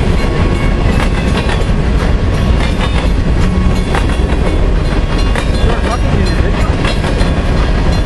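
Freight train of covered hopper cars rolling past at speed: a steady loud rumble of steel wheels on rail, with scattered clicks and clacks from the wheels.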